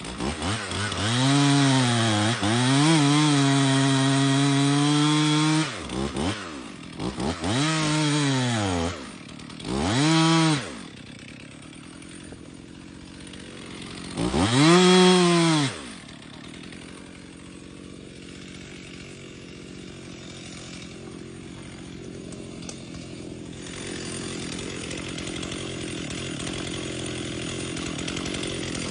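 60cc two-stroke chainsaw revved up and held at high throttle for about five seconds, then revved in three shorter bursts with drops in between. It then runs at a lower, steady idle for the rest of the time.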